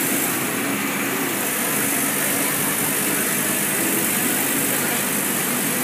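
Steady engine and road noise of a moving coach bus, heard from inside the passenger cabin.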